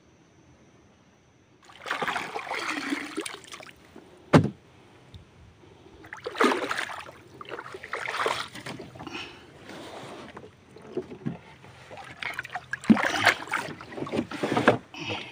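Footsteps wading through mangrove mud and shallow water: several splashing bursts, each about a second long, with one sharp knock about four seconds in.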